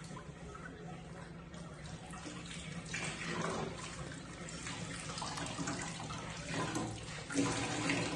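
Tap water running into a kitchen sink while dishes and pans are washed by hand, with knocks and clatter of dishes against the sink, the loudest near the end.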